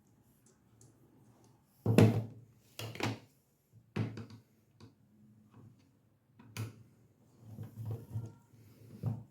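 Handling knocks and clatter as a microwave's cooling-fan motor is taken apart for greasing: a handful of separate sharp knocks, the loudest about two seconds in, with more near three, four, six and a half and nine seconds.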